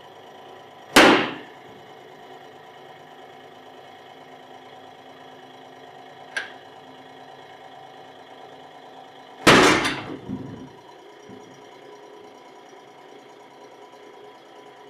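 Mechanical bottle jack giving way in a hydraulic press past about 14 tonnes: two loud sharp bangs, about a second in and again near nine and a half seconds, the second followed by about a second of rattling, with a small click between. Under it the press's hydraulic pump motor hums steadily.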